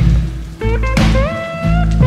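Slow blues band music: a lead guitar phrase of bent, gliding notes over a steady bass line, with a cymbal hit about a second in.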